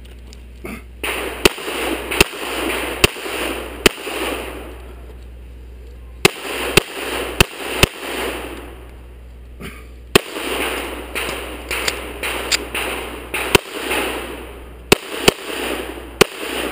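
Pistol shots fired in quick pairs and short strings, well over a dozen sharp bangs in groups with pauses of a second or two between them. A rustling noise rises and falls in the gaps.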